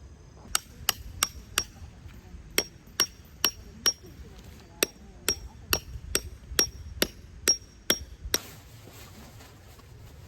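Repeated sharp metallic strikes in three quick runs, about two or three a second, each leaving a brief high ring; the striking stops a couple of seconds before the end.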